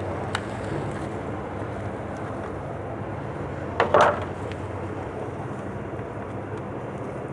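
Hands handling a thin plastic cup of soil holding an acacia seedling: a short click just after the start and a brief crinkle about four seconds in. A steady low background hum runs underneath.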